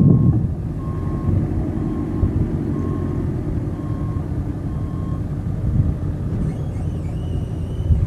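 Komatsu WB140-2 backhoe loader's diesel engine running steadily as the machine drives, with its backup alarm beeping about once a second and stopping about five seconds in.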